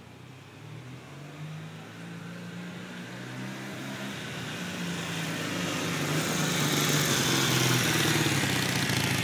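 Honda CB400T motorcycle's parallel-twin engine running as the bike approaches, getting steadily louder over several seconds and drawing alongside near the end, its engine note rising and falling.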